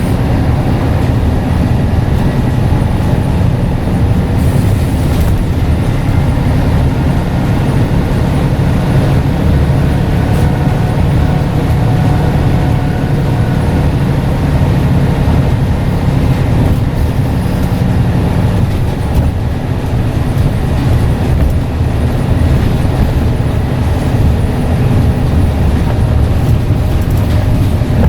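Scania N94UD double-decker bus engine running steadily under way, a loud low drone with a faint, steady high turbo whistle above it.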